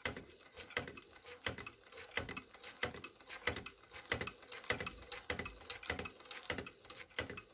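Elna Junior hand-cranked toy sewing machine stitching: a run of light mechanical clicks, about three a second, as the needle goes up and down through the fabric.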